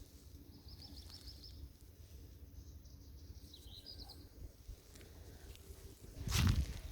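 Quiet outdoor ambience with a low wind rumble, a faint rapid bird trill about half a second in and another brief bird call near four seconds. A short loud rustling noise near the end.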